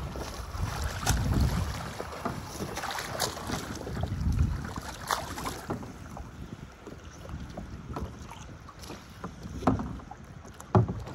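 Water splashing as a swimmer in a drysuit strokes through choppy lake water to a plastic fishing kayak, with gusts of wind on the microphone. Near the end come two sharp knocks as he grabs the kayak and hauls himself onto its hull.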